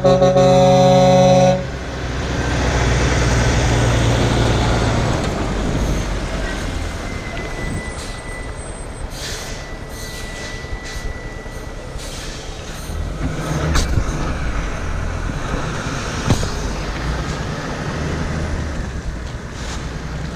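Peterbilt semi-truck's air horn sounding one steady chord that cuts off about a second and a half in. The truck's engine and tyres then swell as it pulls past and fade into steady traffic noise.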